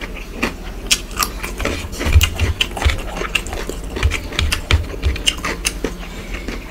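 Close-miked eating: wet chewing with many quick mouth clicks and smacks, and dull low thumps a couple of times, while fingers mix rice on a steel plate.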